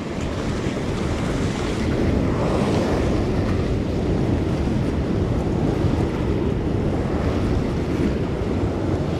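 Ocean swell surging and washing against a rock ledge, with wind buffeting the microphone.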